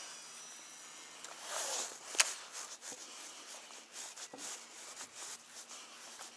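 Handling noise from a rod and a Shimano Calcutta Conquest DC 200 baitcasting reel during fishing. A short rushing swell comes about one and a half seconds in, then one sharp click, followed by scattered light ticks and rubbing.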